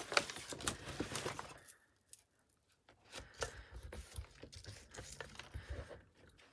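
Crinkled brown packaging paper rustling and crackling as a sheet is handled, a short pause, then softer rubbing and rustling as hands press a painted gel plate down onto the paper.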